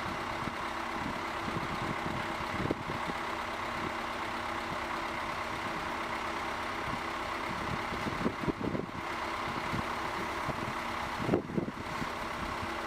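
Engine of heavy construction machinery running steadily at a low, even speed, with a few short clunks.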